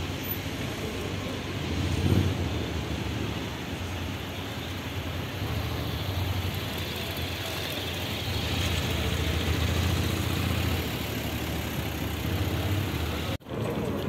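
Steady town-street traffic noise: a low rumble of passing vehicles. It drops out abruptly for a moment near the end.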